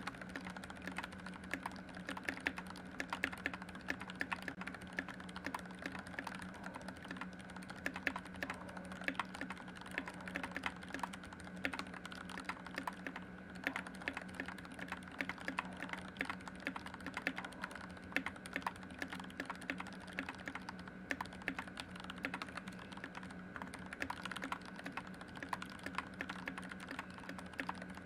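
Continuous typing on a Skyloong GK61x mechanical keyboard with Gateron Black linear switches, lubed with Krytox 205g0, under HK 9009 keycaps: a dense, uneven run of keystroke clacks, several a second, over a steady low hum.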